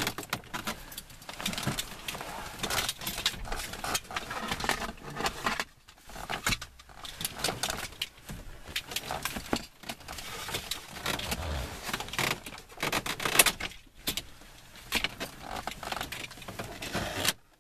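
Irregular clicking, rattling and scraping of hands and a makeshift tool working under a car's dashboard to free its plastic trim, without the proper removal tool.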